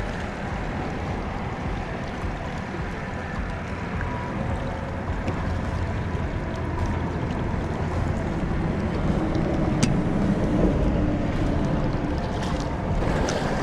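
Small waves lapping and washing against the rocks at the foot of a seawall, with wind noise on the microphone. A single sharp click about ten seconds in.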